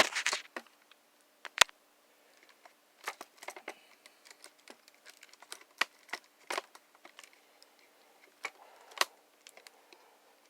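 Irregular light clicks, taps and small rattles of toy foam-dart guns and darts being handled, with one sharper knock about one and a half seconds in.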